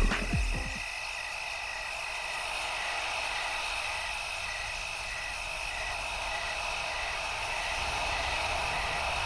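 Outdoor night-style chorus of small calling animals: a steady high trill with a short chirp repeating about twice a second over a soft hiss. Background music cuts off in the first second.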